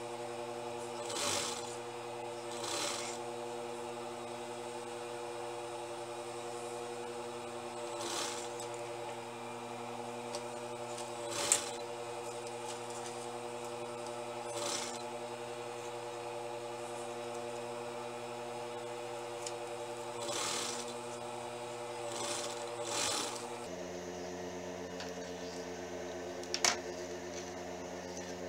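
Jontex industrial sewing machine humming steadily, with short noisy bursts every few seconds and a few sharp clicks as the fabric is worked under the needle. The hum changes abruptly about three-quarters of the way through.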